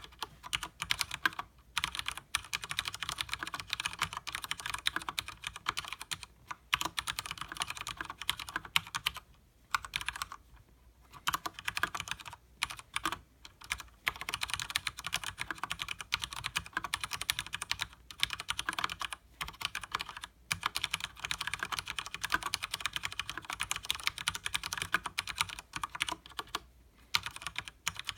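Fast continuous typing on a Leopold FC900R mechanical keyboard with linear Cherry MX Speed Silver switches and double-shot PBT keycaps: rapid keystroke clacks in long runs, broken by a few short pauses.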